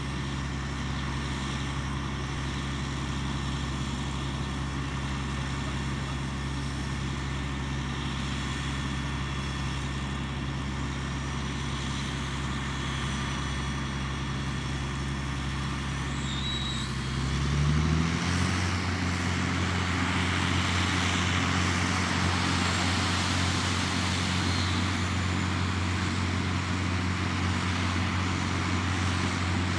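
Engine of a water well drilling rig running steadily at low speed. About two-thirds of the way through it revs up to a higher steady speed, and a rushing hiss joins the engine sound.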